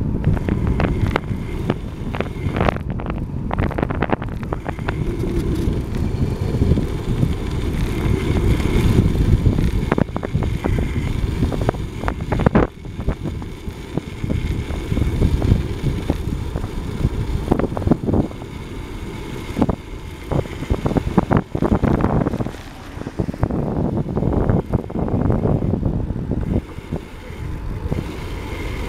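Wind rushing over the microphone of a bike-mounted camera as a road bike descends at speed, with irregular knocks and rattles throughout from the bike and camera running over the road surface.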